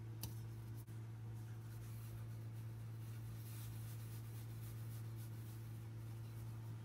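Steady low hum, with a faint click about a quarter second in and faint rustling.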